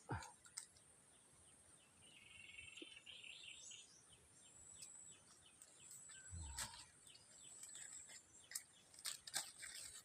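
Faint forest ambience: a bird calls a fast run of short, repeated high notes for several seconds, starting about two seconds in. A few sharp clicks and a dull knock sound around it.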